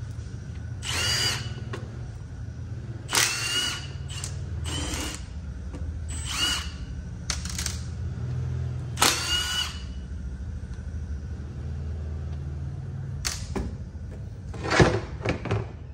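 Cordless power driver spinning out the stator cover bolts of a two-stroke dirt bike engine in short bursts of about half a second, each motor whine rising then falling in pitch. A steady low hum runs underneath, and a few sharp knocks come near the end.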